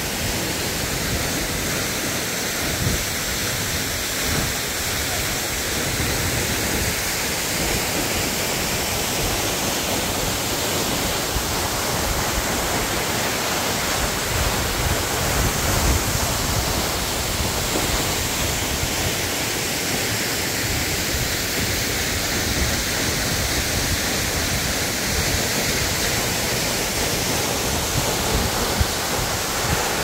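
Steady rush of a three-tier waterfall about 20 m high, water pouring over a cliff into the pool below.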